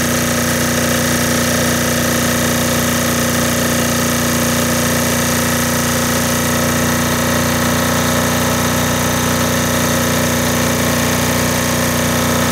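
Air-cooled single-cylinder diesel generator engine running steadily under heavy electrical load, its governor speed being fine-tuned so the output sits at 60 Hz.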